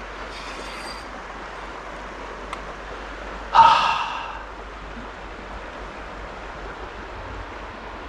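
A steady rush of creek water over a shallow riffle. About three and a half seconds in comes one short, loud sigh from a man, frustrated at the loss of his leader.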